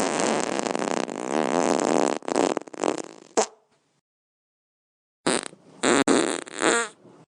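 A long fart with a wavering pitch, ending in a short sharp pop about three and a half seconds in. After a short silence come a few quick short farts.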